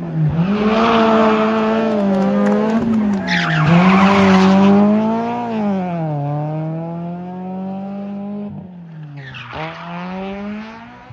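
Small hatchback race car's engine revving hard through a hairpin and accelerating away, its pitch climbing and dropping sharply several times with throttle and gear changes. Bursts of tyre squeal come in the first few seconds. The engine fades in the second half as the car pulls away up the hill.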